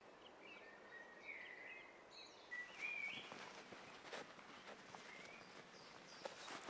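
Faint songbird chirping, several short phrases in the first three seconds, over quiet outdoor ambience. Later come a few soft footsteps in grass.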